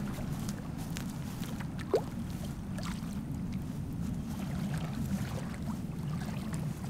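Water lapping and sloshing against a half-submerged action camera's housing, heard as a steady muffled low rumble with scattered faint clicks. A short rising squeak comes about two seconds in.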